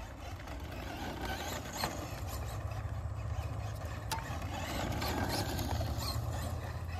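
Traxxas Mudboss electric RC dirt-oval car driving laps on a dirt track: its motor and tyres on loose dirt are heard over a steady low rumble, with a few faint clicks.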